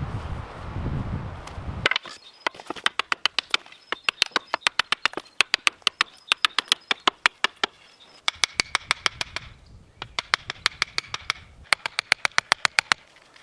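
A low rumble for about two seconds, then fast runs of sharp knocks, about four or five a second, broken by short pauses: quick tool strikes on wood.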